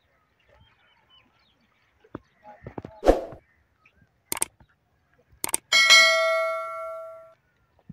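Subscribe-button animation sound effects: a whoosh about three seconds in, two sharp mouse clicks, then a notification-bell ding that rings out and fades over about a second and a half.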